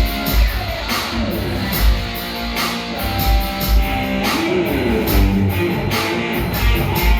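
A live band playing a song: guitar over a steady drum beat.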